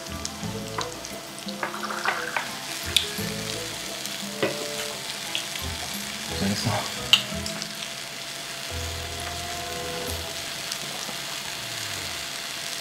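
Pork belly and garlic sizzling on a tabletop electric grill pan, a steady hiss, broken by a few sharp clicks, the loudest about seven seconds in.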